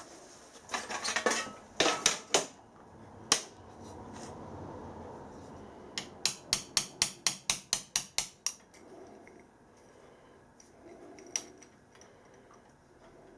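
Hammer striking a pin punch to drive a pin further into a repaired part: a few scattered metallic taps, then a quick even run of about a dozen taps, about four a second, starting about six seconds in.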